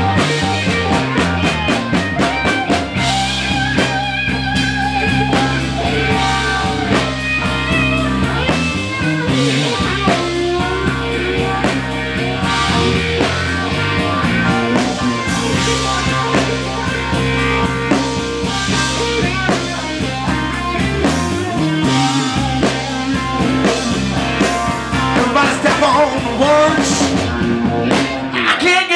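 Live band playing amplified music, with drum kit, bass guitar, keyboard and horns including saxophone and trumpet, in a long stretch without lyrics.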